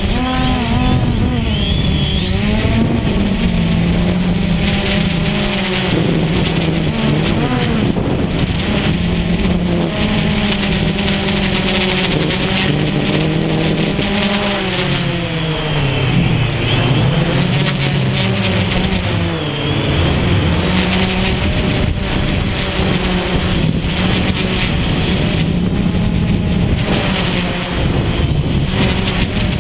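DJI Phantom quadcopter's electric motors and propellers, heard close up from the camera it carries: a continuous motor drone whose pitch keeps rising and falling as the motors speed up and slow down while it manoeuvres, over a rush of air.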